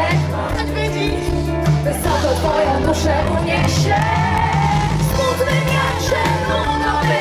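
Live pop band playing loudly through the PA, with a woman singing into a handheld microphone over a steady bass and drum beat.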